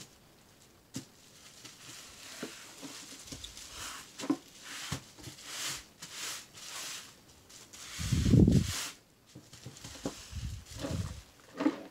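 Bubble-wrap and plastic packaging around a tablet box crinkling and rustling under gloved hands, with scattered small clicks. A few dull low thumps come as the box is handled, the loudest about eight seconds in.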